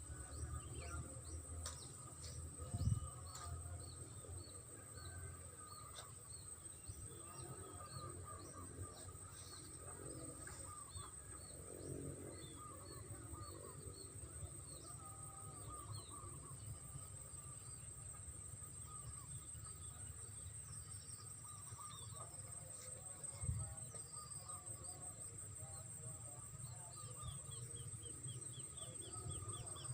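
Rural outdoor ambience: a steady high insect drone with birds chirping over it and a low rumble underneath. There are two short thumps, one about three seconds in and one near the two-thirds mark.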